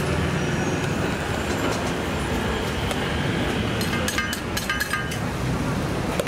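Steady rumble of street traffic, with a quick run of sharp metallic clinks about four seconds in.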